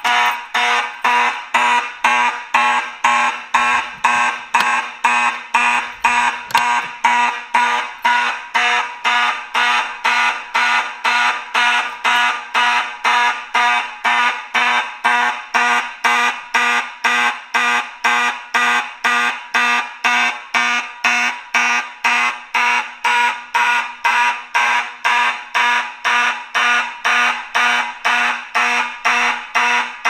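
CPG 4050D fire alarm horn sounding in fast march-time pulses, about two a second, a buzzy horn tone. The pulses are 120 SPM march-time coding from a pulled pull station on a non-silenceable alarm circuit.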